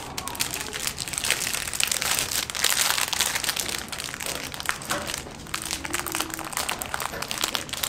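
Thin clear plastic packaging crinkling and crackling as hands handle a LEGO set's bagged instruction book and sticker sheet.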